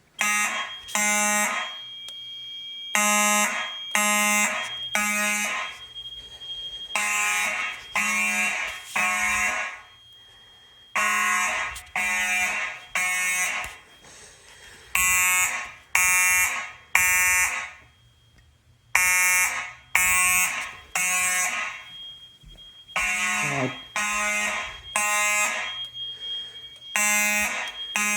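Fire alarm horn sounding a buzzy evacuation signal in the temporal-3 pattern: three pulses about a second apart, then a pause, repeating every four seconds. It starts about a third of a second in, as the system goes into alarm.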